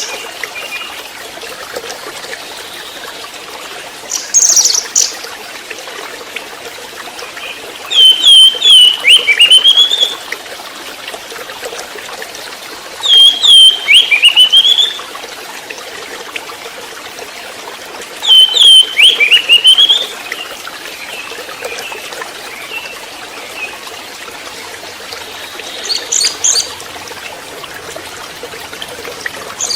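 Juvenile orange-headed thrush calling: three bursts of quick, sweeping notes about five seconds apart, with shorter high calls before and after them, over a steady background hiss.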